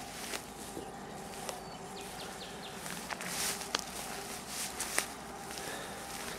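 Footsteps and rustling through tall grass and reeds, with a few sharper snaps and brushes, the sharpest near the end. A faint steady hum runs underneath.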